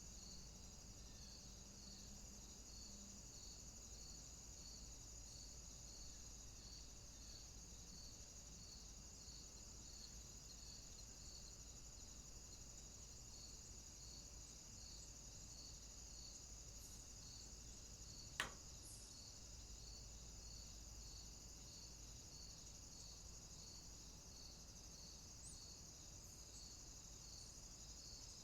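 Faint summer insect chorus: a steady high-pitched trill with a chirp repeating a little under twice a second, over a faint low rumble. A single sharp click about two-thirds of the way through.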